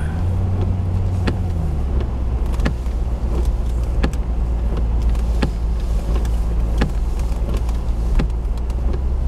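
Car engine and road noise heard from inside the cabin, a steady low hum whose note drops a little about two seconds in. A light click repeats about every second and a half.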